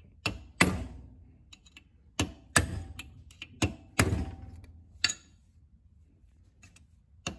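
Hammer blows on a steel punch, tapping the crown wheel (ring gear) off a Hilux rear differential carrier a little at a time around its edge. About eight sharp metallic strikes, mostly in pairs, each ringing briefly.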